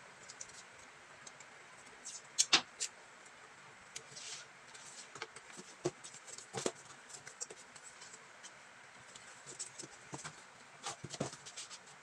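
Cardboard pieces being handled and slid into place on a board on a table: scattered light taps and clicks with brief rustles, the sharpest around two and a half seconds in and again near the end.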